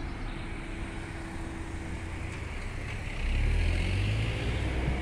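City street traffic noise, with a motor vehicle's low engine rumble growing louder about three seconds in as it passes close by.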